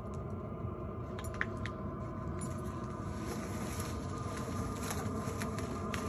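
Chinese diesel heater running with a steady, even hum of several held tones, growing a little louder near the end. Scattered light clicks and soft steps sound over it.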